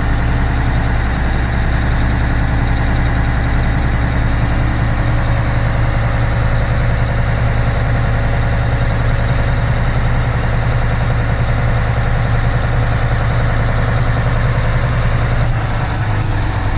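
The diesel engine of a 36-metre truck-mounted concrete pump running steadily with a low hum while it drives the hydraulics that raise the boom. The engine note changes slightly near the end.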